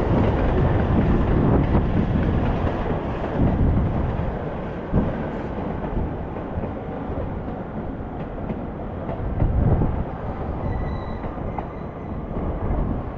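Trains running on the tracks at Tokyo Station: a rumbling noise, louder for the first few seconds and then easing off.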